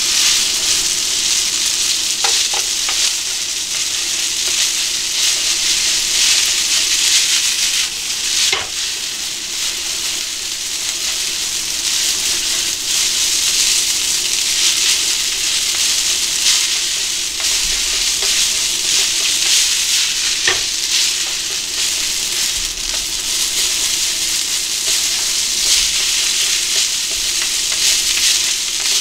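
Spaghetti sizzling in a hot frying pan as it is tossed and stirred with wooden chopsticks: a steady frying hiss, with a few sharp clicks of the chopsticks against the pan.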